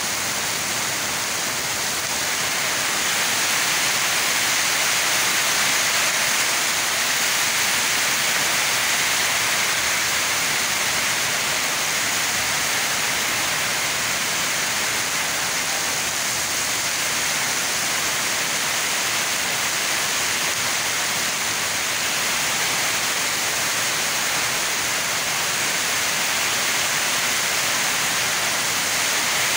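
Heavy downpour falling steadily onto the paved ground and puddles, an even, unbroken hiss of rain.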